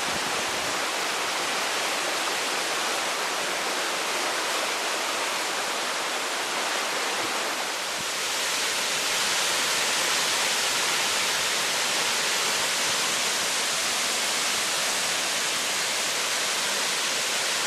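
Floodwater of the Assunpink Creek at a record high, rushing and churning in a steady noise that grows slightly louder about eight seconds in.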